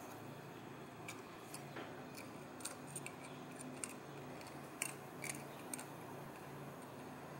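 Faint, irregular metallic clicks and taps as small hydroboost internals and the cast housing are handled and fitted together, over a low steady hum.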